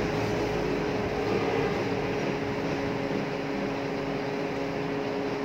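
Steady background hum and hiss with a couple of unchanging low drone tones, the constant noise of a running machine.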